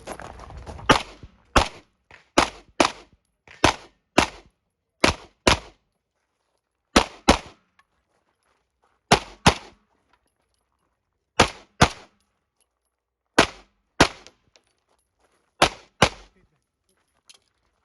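Handgun fired in quick pairs: about nine double-taps, each pair's two sharp shots about half a second apart, with a second or two between pairs as the shooter moves from target to target on a USPSA stage.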